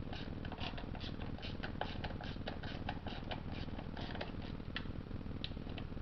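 Quick run of small, irregular metallic clicks and squeaky ticks, about four or five a second, from hand tools working on the transmission's pan bolts, over a steady low hum.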